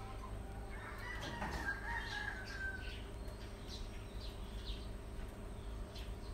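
A rooster crows once, starting about a second in and lasting about two seconds. Under it run small repeated crunches of rabbits chewing leafy greens and carrot.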